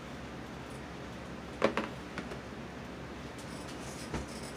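A sharp plastic knock about one and a half seconds in, two lighter clicks after it, and a duller thud near the end: a clear plastic food-storage container being handled and set down on a countertop.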